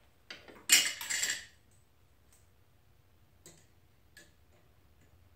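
Shop-built tiny power hammer's pneumatic air hammer fired in one short burst of about a second, a hissing blast of air and rapid striking. A few light metal clicks and taps follow as the tool and its S7 steel die are handled.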